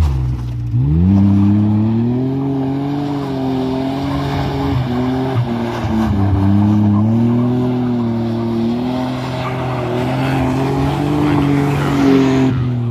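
1995 Isuzu Trooper's engine revving hard, its pitch rising and falling as the SUV slides round on loose dirt, with tyres scrabbling.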